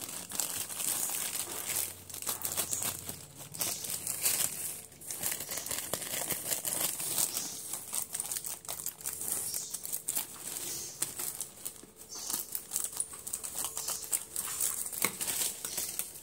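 A thin plastic carry bag crinkling and rustling as it is handled and cut into a round piece, with many small crackles throughout.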